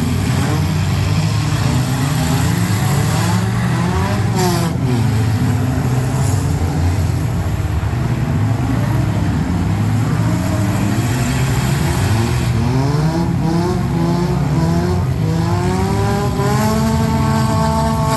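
Engines of several compact demolition derby cars revving up and down over one another, with a couple of sharp knocks about four seconds in. Near the end one engine climbs and holds at high revs.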